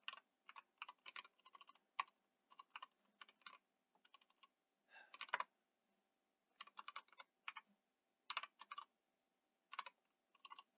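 Computer keyboard typing: quiet clusters of keystroke clicks in short runs, separated by brief pauses.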